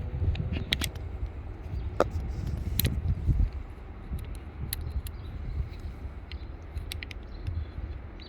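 Scattered clicks and light metallic taps of small hand tools and the saw's plastic housing as the mini chainsaw's chain tension is adjusted, over a low rumble. The clicks are busiest in the first few seconds and thin out later.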